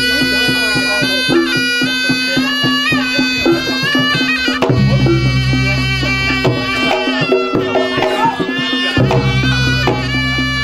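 Reog Ponorogo accompaniment music: a slompret shawm playing a wavering, nasal melody over rapid kendang drumming, a steady drone and deep gong tones.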